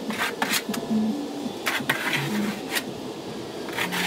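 Shovel scraping along the ground, scooping up goat droppings in repeated short strokes.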